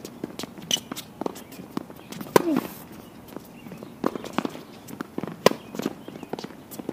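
Tennis rally on a hard court: sharp pops of racket strikes and ball bounces, mixed with shoe scuffs and footsteps. A short vocal grunt comes with a hit about two and a half seconds in.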